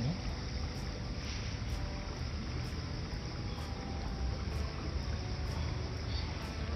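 A shallow river running over stones, a steady rushing with a low rumble of wind on the microphone.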